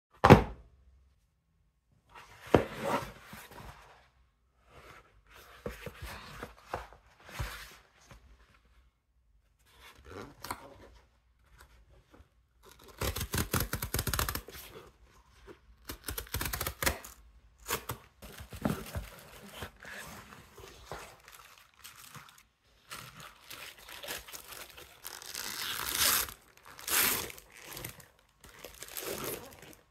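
Close-up packaging handling. There is a sharp knock at the very start. The tear strip of a corrugated cardboard mailer is then ripped open, loudest as a fast run of rips about halfway through, and tissue paper crinkles near the end.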